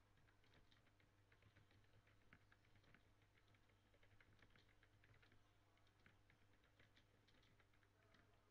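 Faint typing on a computer keyboard: quick, irregular key clicks, over a faint steady low hum.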